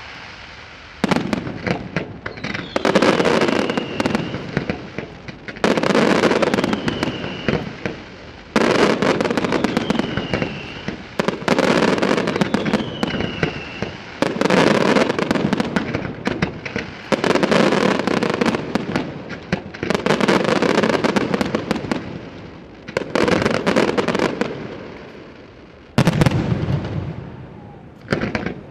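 Aerial fireworks display: salvos of shells bursting and crackling, a new loud volley about every three seconds, each dying away before the next. Short falling whistles sound over several of the volleys.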